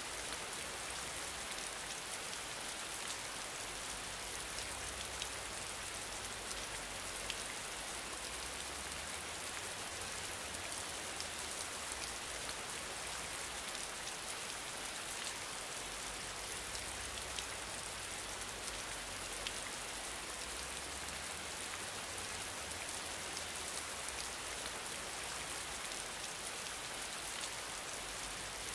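Steady rain-like hiss with faint, scattered light ticks.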